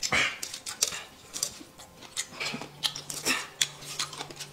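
Close eating sounds: wet chewing and lip smacking over boneless chicken feet, with short slurps of noodles, as an irregular run of small clicks and smacks several times a second.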